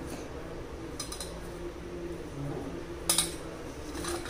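Steel spoon clinking against kitchen containers while spooning salt into a bowl: a light clink about a second in and a sharper one a little after three seconds. A faint low hum runs underneath.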